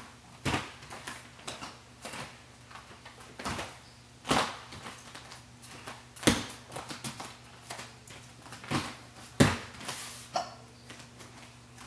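Hands and feet striking folding gym mats during tumbling: scattered thuds and slaps a second or more apart, with louder landings about four, six and nine seconds in, over a faint steady hum.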